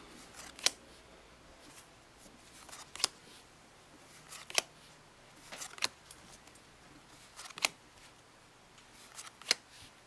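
Bicycle playing cards being laid one at a time onto a face-up pile, each landing with a sharp snap after a brief slide of card on card. There are six snaps, about every one and a half to two seconds.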